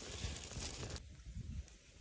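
A pot of bamboo-shoot soup boiling, a steady bubbling hiss that cuts off sharply about halfway through, leaving a faint low rumble.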